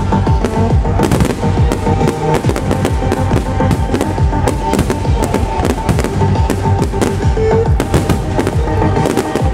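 Trance music played loud over outdoor show speakers, with firework shells and comets bursting in many quick bangs through it.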